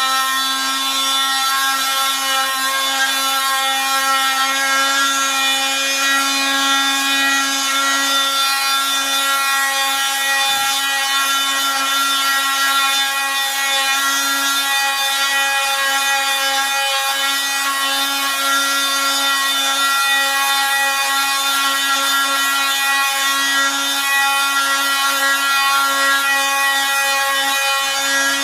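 Handheld power tool running at a steady, even whine while sanding down the damaged aluminium skeg of an outboard motor's lower unit, with the rasp of abrasive on metal.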